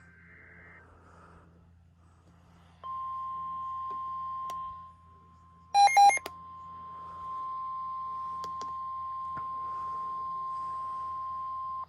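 The end of a warbling SAME digital header burst, then the NOAA Weather Radio warning alarm tone: one steady tone near 1 kHz that starts about three seconds in and sounds to the end, dipping briefly once. It announces a new flood-warning broadcast. A few loud short beeps cut in about halfway through.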